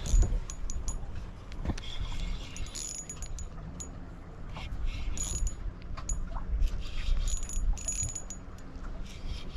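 Low uneven rumble with scattered light metallic clicks and jingles through it.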